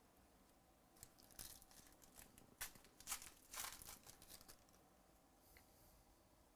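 A foil trading-card pack being torn open by hand: a run of sharp crinkling and tearing crackles from about a second in to about four and a half seconds in.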